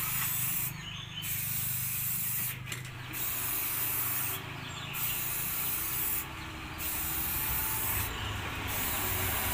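Aerosol spray-paint can hissing in repeated bursts of about a second and a half, with short breaks between passes, as black paint is sprayed onto corrugated metal sheeting.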